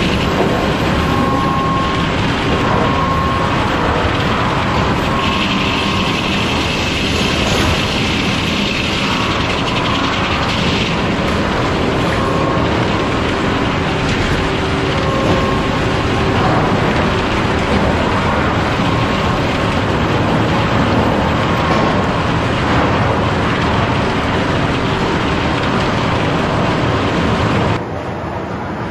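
Steady din of a sawmill: the circular head saw and mill machinery running, with a higher whine for several seconds about five seconds in. The level drops suddenly near the end.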